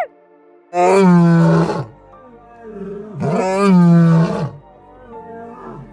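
A large animal roaring twice, each roar about a second long and starting loud, over faint steady background music.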